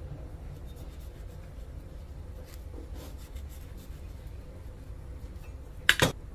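Faint clinks and rubbing of dishes and utensils over a low steady hum, then one loud, ringing clink of dishware about six seconds in.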